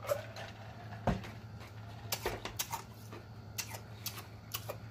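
Close-miked drinking from a glass jar: gulps and swallows with sharp wet mouth clicks scattered through.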